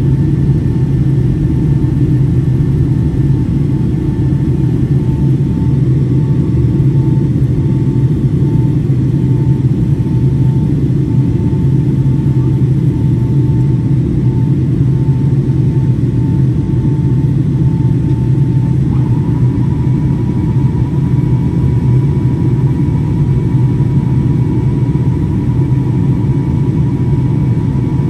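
Steady cabin roar of a Boeing 757-200 in flight, heard from inside the passenger cabin: engine and airflow noise. A faint whine in it pulses at first, then shifts slightly higher and holds steady about two-thirds of the way through.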